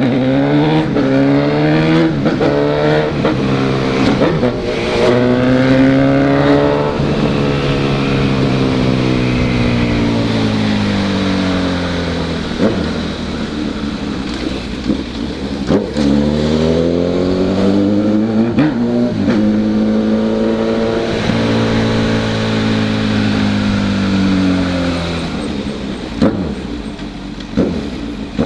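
Honda CB1000's inline-four engine under way. It revs up through the gears, its pitch climbing and dropping back at each shift. It eases to a steadier, lower note through the middle, pulls hard again in the second half, and winds down near the end.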